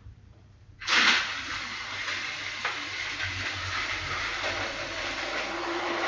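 Battery-powered Tomy toy train running on plastic track, a steady hissing rattle that starts suddenly about a second in and slowly grows louder, with a faint motor hum coming in near the end.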